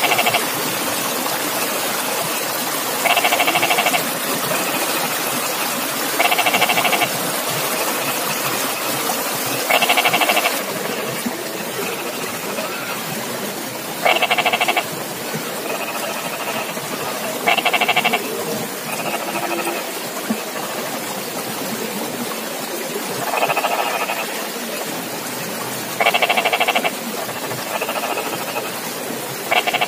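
A frog calling over and over from a flooded rice paddy, each pulsed croak under a second long, every three to four seconds, with fainter calls in between, over a steady hiss.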